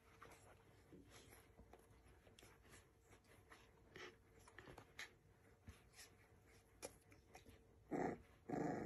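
Bull terriers play-mouthing on a blanket: faint soft rustling and small clicks, then two short dog growls close together near the end.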